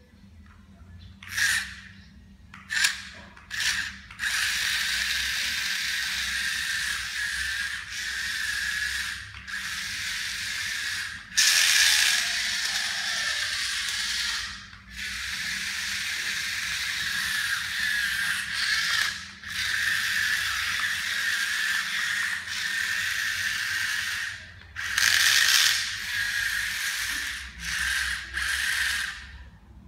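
Small DC gear motors of a homemade RC car whirring as it drives. They come on in three short spurts in the first few seconds, then run in longer stretches with brief stops.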